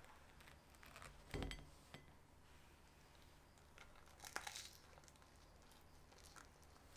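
Near silence with a few faint handling sounds: a soft thump about a second and a half in, and a short crinkly rustle about four seconds in.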